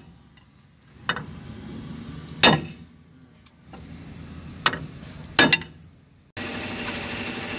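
Sharp metal clanks with a ringing tail, four of them spaced a second or more apart, as a loader's hydraulic cylinder is taken apart and its chrome piston rod is drawn out. About six seconds in, the sound switches abruptly to a steady engine-like running noise.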